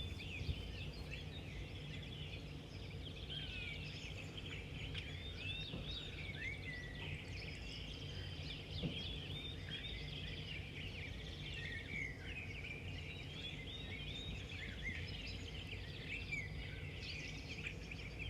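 Many small birds chirping and twittering continuously, over a low steady hum.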